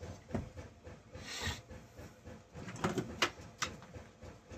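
Light clicks and knocks of chainsaw parts being handled and worked loose by hand, with a short scrape a little over a second in and a quick cluster of clicks about three seconds in.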